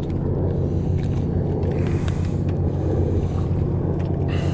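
A boat's motor humming steadily at a low pitch, with some wind noise on the microphone.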